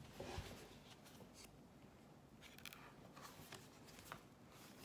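Faint rustling and light taps from a cardboard board book being handled as its cover is opened and the first page turned, in a quiet room.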